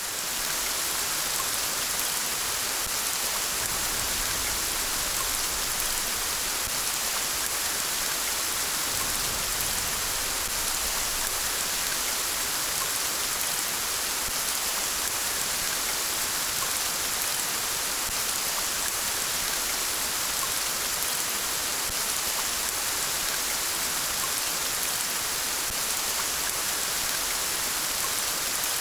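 Rain falling steadily: an even, unbroken hiss of many drops.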